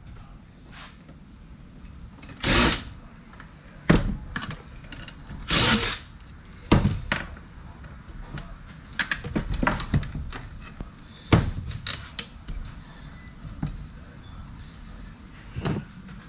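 Hand tools knocking and clicking against the metal parts of a power tool being taken apart, with scattered sharp taps and two short hissing bursts.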